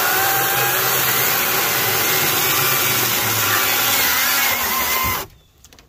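Greenworks Commercial GS110 battery top-handle chainsaw running and cutting through a box elder log, the electric motor and chain making a steady whine. It cuts out abruptly about five seconds in.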